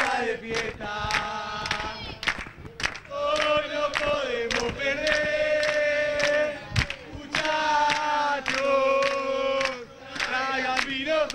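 A small crowd of football supporters singing a terrace chant together in long held notes, keeping time with handclaps about two a second.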